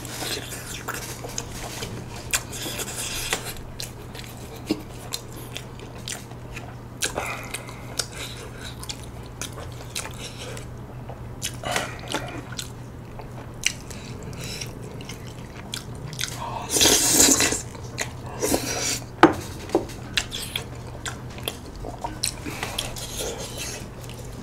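Close-miked eating of spicy tteokbokki and wide glass noodles: wet chewing, slurping and sharp mouth and chopstick clicks. A louder noisy sound of about half a second comes about two-thirds of the way through, over a steady low background hum.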